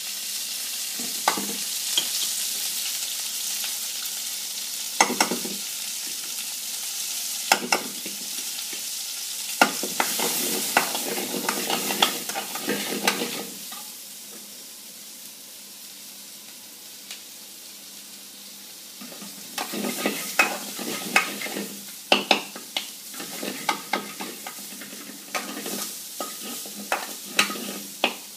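Vegetables sizzling in a frying pan on a gas burner while a utensil stirs them, knocking and scraping against the pan. The sizzle is strong for about the first thirteen seconds, then dies down, and in the second half the stirring knocks come thick and fast.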